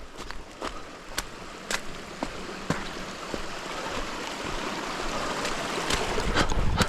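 Rushing stream water that swells and is loudest near the end, with a hiker's footsteps on wet ground about two a second.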